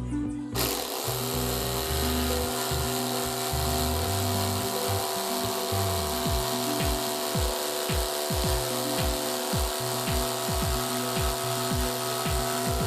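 A power tool's motor starts about half a second in and runs steadily, working wood, over background music with a regular beat.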